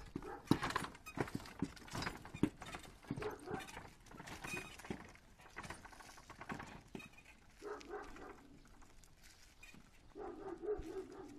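A horse's hooves clip-clopping on a paved road as it pulls a wooden cart, with the cart knocking and rattling along.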